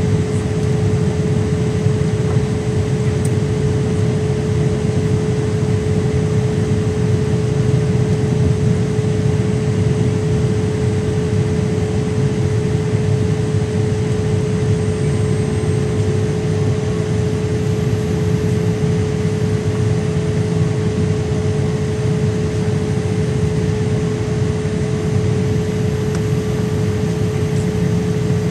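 Jet airliner cabin noise in flight: the steady rush of engines and airflow, with a steady hum running through it.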